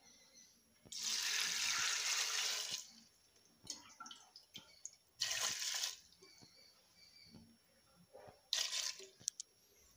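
Liquid poured into a pressure cooker over cluster beans, in three pours: a long one about a second in, then two short ones.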